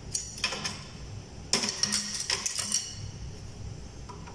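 Metal orthopedic surgical instruments clinking and rattling against one another and their tray as a hand shifts them. There is a cluster of clinks in the first three seconds, the loudest about a second and a half in, and it goes quieter after that.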